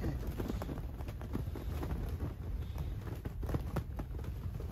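Light, irregular crunching clicks in packed snow over a steady low rumble of wind on the microphone.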